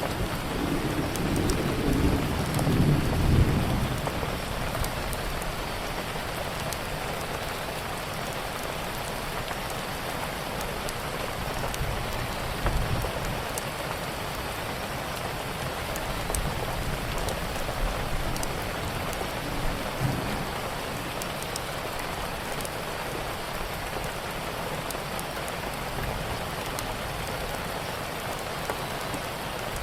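Steady rain, with a low rumble of thunder in the first few seconds and fainter rumbles later, while a wood fire gives scattered sharp crackles.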